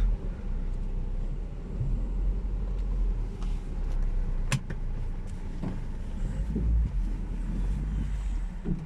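Front end of a 2009 Chevrolet Aveo GT giving a sharp 'track' knock about halfway through, with a few fainter knocks around it, as the steering is turned at a standstill, over the low steady rumble of the running car. The knock persists after the CV axles were replaced; its cause in the steering or front suspension is not yet known.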